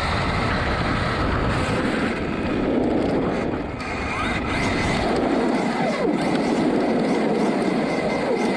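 Arrma Kraton 8S RC monster truggy driving: a continuous rough rumble of tyres and drivetrain on the ground, with the electric motor's whine rising and falling as the throttle changes.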